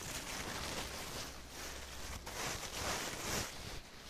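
Rustling hiss on the phone's microphone as the phone is moved about, swelling and fading about three times.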